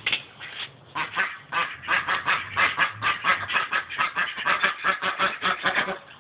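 Domestic ducks quacking in a fast, loud run of about five quacks a second, starting about a second in and stopping abruptly just before the end.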